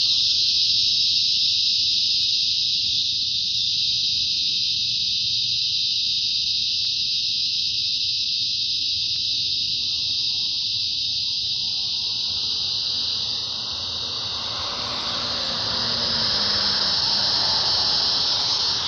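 Crickets chirping in a dense chorus, a steady high-pitched trill that never lets up, over a low background hum.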